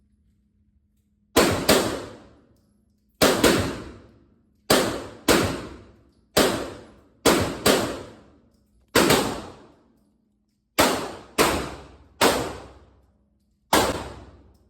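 A string of gunshots, about fourteen at an uneven pace with some fired in quick pairs, each shot echoing away over about half a second.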